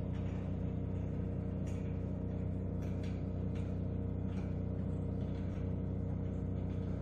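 Steady low hum made of several constant tones, with a few faint light clicks.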